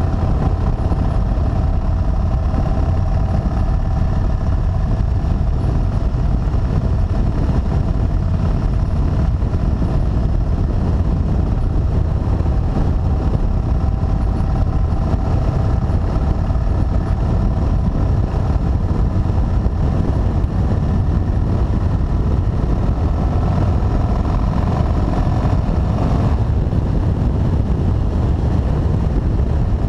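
Motorcycle engine running at road speed under heavy wind rumble on a bike-mounted microphone. The engine note wavers steadily and shifts about 26 seconds in.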